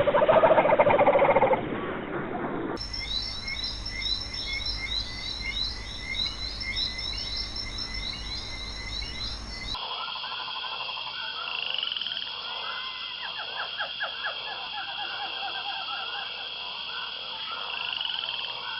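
A chorus of frogs calling, many short repeated calls overlapping, in two spliced stretches that change character about ten seconds in. A voice is heard briefly at the very start.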